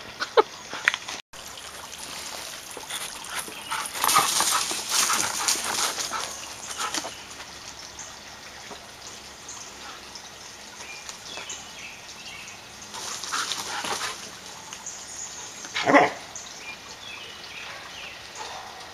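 A Samoyed at play, scuffling and rustling in wood-chip mulch, with one loud bark near the end.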